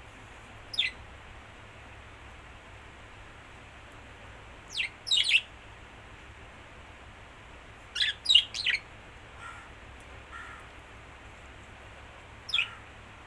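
Lovebirds giving short, sharp chirps that fall steeply in pitch, alone or in quick runs of two or three, a few seconds apart.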